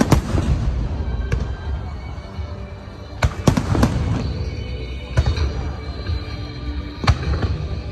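Aerial fireworks bursting in a string of sharp bangs, one every second or two, with music of held notes joining about halfway through.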